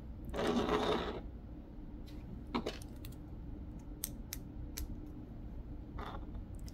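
Lego plastic pieces handled by hand: a brief rustle as a small brick assembly is picked up, then a few light, sharp plastic clicks and taps.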